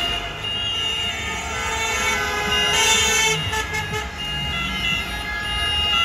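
Many car horns honking at once in slow street traffic, several held long and overlapping, over the rumble of passing engines: celebratory honking by fans after a win.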